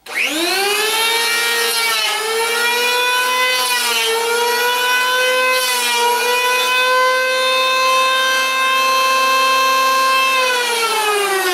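Corded circular saw spinning up to full speed and running steadily while cutting a notch in a small wooden block. Its motor whine sags briefly about two and four seconds in as the blade bites into the wood. Near the end the trigger is released and it winds down.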